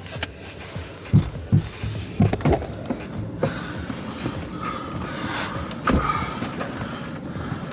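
Dull thumps and knocks with rustling, several close together in the first few seconds and one heavier thump about six seconds in: snow being shaken and knocked off boots and clothes.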